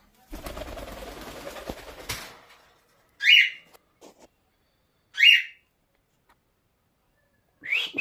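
Cockatiel giving three loud, short calls about two seconds apart, the last one doubled. About two seconds of rustling comes before the calls.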